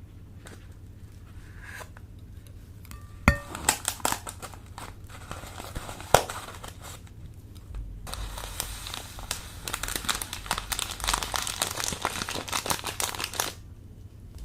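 Crunchy slime being pressed and worked, giving fine crackling and crinkling with a few sharp clicks, then a dense run of crackles that stops suddenly near the end.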